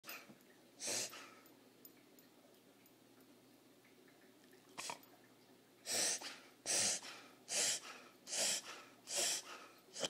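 A dog reverse sneezing: forceful, noisy inhalations through the nose, two single ones early, then a run of five loud ones a little under a second apart in the second half. It is a spasm of the soft palate and throat.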